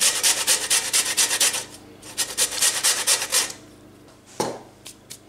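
A lemon being grated on a metal box grater: quick, even rasping strokes in two runs with a short pause between, then one brief knock near the end.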